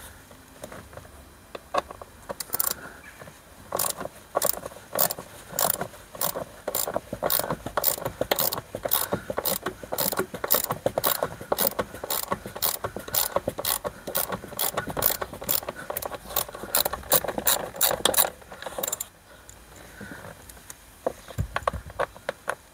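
Ratchet screwdriver with a T30 Torx bit clicking as it undoes a trim screw, a long run of sharp ratchet clicks, about two or three a second, that stops a few seconds before the end.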